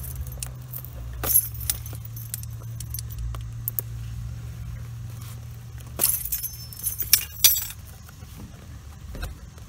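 Small metal items clicking and jingling as a metal survival tin and its contents are handled and turned over, with a few sharper clinks about a second in and again around six to seven and a half seconds in, over a steady low hum.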